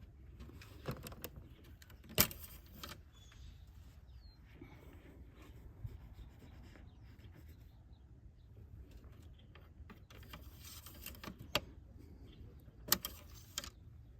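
Handling noises in an engine bay: scattered sharp clicks and knocks with brief rustling, the loudest click about two seconds in and another pair near the end, over a faint low rumble.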